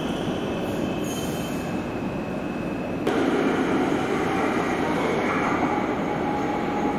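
Bombardier-built RET metro train in an underground station, making a steady running hum and noise with a thin high whine over it. About three seconds in the sound changes abruptly and gets louder and lower.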